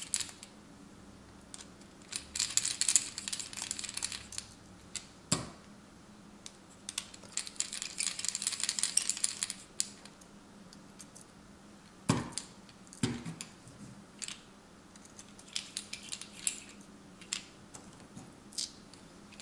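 Precision screwdriver turning T4 Torx screws out of a phone's metal frame: three runs of fast, small metallic clicking and scratching, with a few sharp knocks in between.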